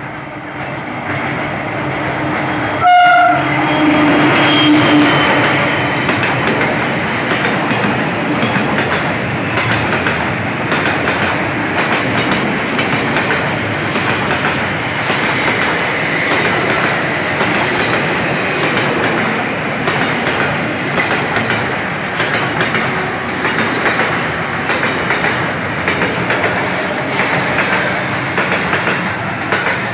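D18E-602 diesel locomotive hauling a freight train past at close range: a short horn blast about three seconds in as the locomotive reaches the camera. After that comes the long line of boxcars rolling by, wheels clattering steadily over the rail joints.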